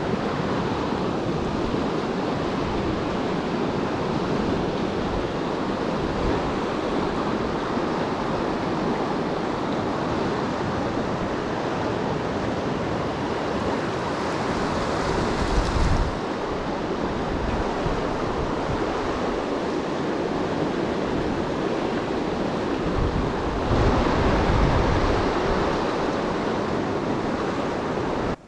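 Creek water running high and fast, a steady full rush, with gusts of wind buffeting the microphone a couple of times.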